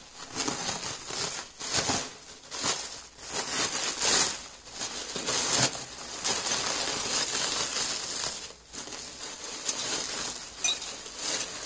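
Black plastic bag crinkling and rustling as it is unwrapped by hand, with the metal hitch pins and cotter pins inside clinking against each other.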